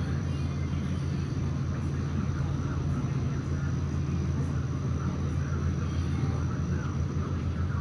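A Halsey-built Quorum Custom ceiling fan running, heard as a steady low hum within the room noise of a restaurant, without much fan noise of its own.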